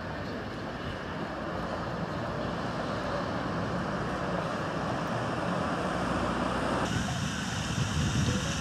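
Steady outdoor background noise, a rushing hiss with a low rumble. Its character changes abruptly about seven seconds in, where the rumble grows stronger.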